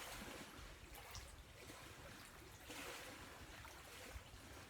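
Faint, steady rushing noise with a low rumble underneath and no distinct events.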